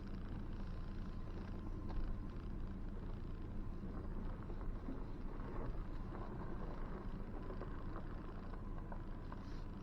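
Ford Ranger Tremor pickup's engine running low and steady while the truck drives slowly on a rough trail, with faint scattered ticks and knocks.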